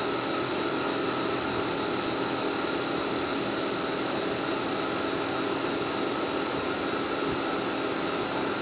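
CNC vertical machining centre milling: the spindle and cutter run steadily with a high-pitched whine, over the hiss of flood coolant spraying on the workpiece, heard through the machine's enclosure.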